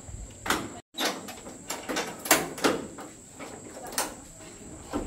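Irregular knocks and clatters, about half a dozen sharp hits over a few seconds, with a brief total dropout about a second in.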